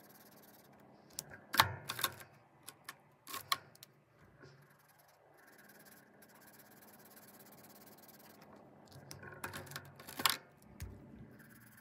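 Felt-tip marker rubbing on paper as a drawing is coloured in, broken by two clusters of sharp plastic clicks: marker caps snapping on and off and markers knocking on the desk as they are swapped.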